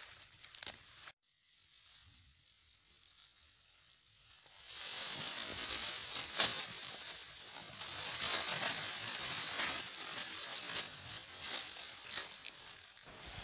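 Dry leaf litter rustling and crackling under two grappling Komodo dragons, with sharp crackles. It drops suddenly almost to quiet about a second in and picks up again a little before the middle.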